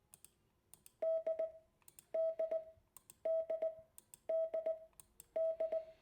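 Morse code letter D (dah-dit-dit) sent as a steady beep of about 650 Hz, repeated five times about once a second, with sharp clicks as each tone keys on and off.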